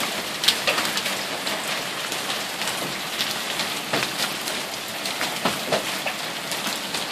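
Hail falling steadily: a dense hiss of hailstones, with many sharp clicks at irregular intervals as individual stones strike.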